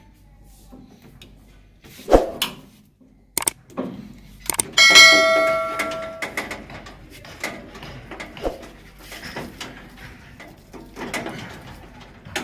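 Scattered knocks and clicks of hard objects, with one loud ringing metallic clang about five seconds in that rings for about a second.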